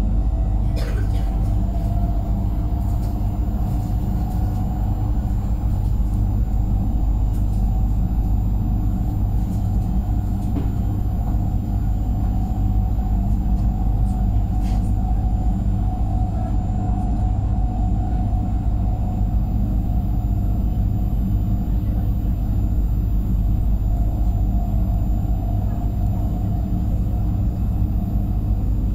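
Pesa Elf electric multiple unit running along the line: a steady low rumble with a steady mid-pitched whine over it.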